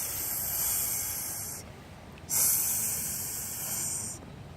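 A person making a snake's hiss, two long high 'ssss' hisses with a short break between them, voicing a toy snake.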